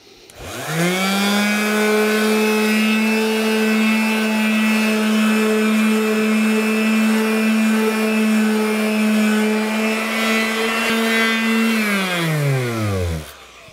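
Palm sander spinning up with a rising whine, then running steadily as it sands a cured fiberglass-and-epoxy patch smooth, and winding down to a stop near the end.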